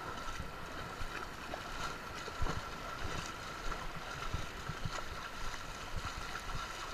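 Wind rumbling on the microphone over shallow surf washing around the shore, with a few dull low thumps, the strongest about two and a half seconds in.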